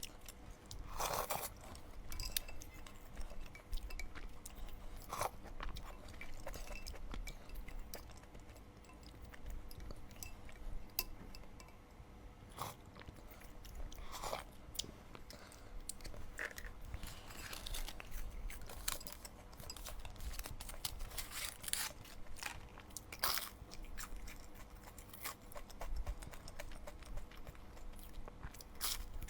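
Close-miked eating sounds: a person chewing and biting food, with irregular crunches and wet mouth clicks.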